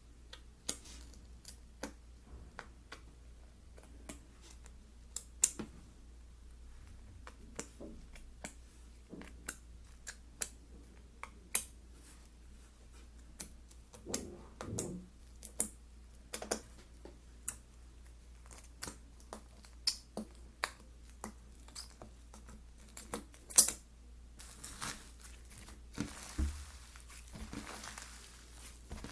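Slime being squeezed and pressed by hand, giving irregular sharp clicks and pops, some much louder than others. Near the end a soft crinkling rustle joins them.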